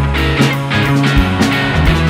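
Live psychedelic rock band playing at full volume: electric guitars over a bass line and a driving drum beat with regular drum hits.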